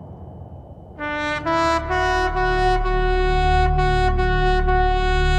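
A faint low rumble, then about a second in a solo trumpet starts: two short rising notes leading into one long held note.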